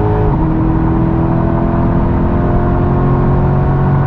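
C8 Corvette's stock 6.2-litre V8, its twin turbos removed, pulling hard under acceleration, heard from inside the cabin. The engine note drops slightly shortly after the start, then climbs slowly and steadily.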